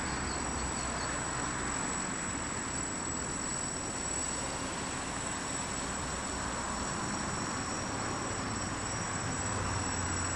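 Homebuilt quadrocopter's electric motors and propellers buzzing steadily in flight, a high whine over a noisy hum, wavering slightly near the end.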